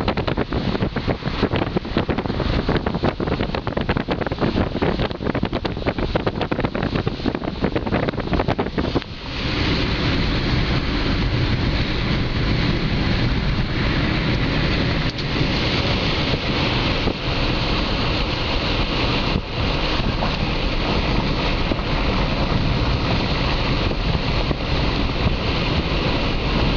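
Wind rushing past the open window of a moving car, buffeting the microphone over road noise. The buffeting is choppy for about the first nine seconds, then settles into a steadier rush.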